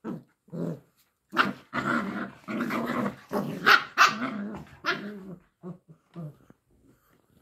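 Play growls and barks from an adult dog and a puppy wrestling. A rapid string of them builds about a second in, is loudest in the middle, and thins to a few short growls near the end.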